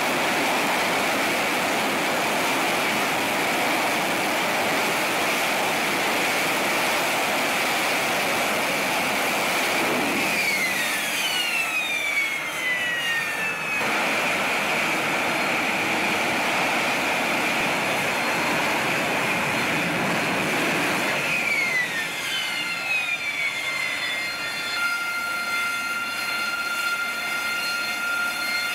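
Harrier jump jet's Pegasus turbofan running at hover power: a loud, steady rush with a high whine. Twice, descending whistles sweep down in pitch. After about 25 seconds the rush eases and steady whining tones remain as the jet settles on the deck.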